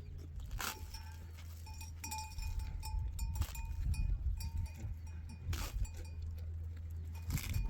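Livestock bells clinking and ringing now and then, with a few sharper clanks, over a low steady rumble.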